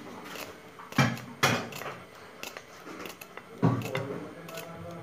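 Knife slicing ivy gourd by hand over a steel plate: small clicks and taps from the blade and falling slices, with three louder knocks, two about a second in and one past three and a half seconds.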